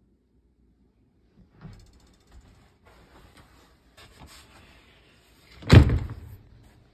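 Light clicks and rattles of a wooden cabinet door being handled in a camper's wood-panelled interior, then near the end the door bangs shut once, loudly, with a short ringing decay.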